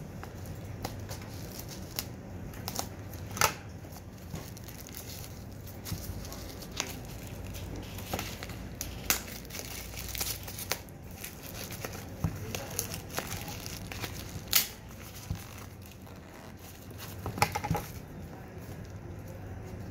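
Plastic shrink-wrap being crinkled and torn off a cardboard box by hand, in irregular sharp crackles with a few louder snaps.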